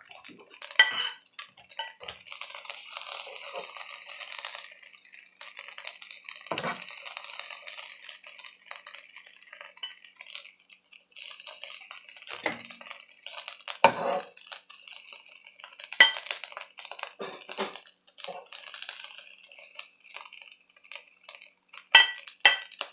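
A metal serving spoon scraping fried rice out of a nonstick pan and onto a ceramic plate, with sharp clinks of metal on the plate and pan every few seconds.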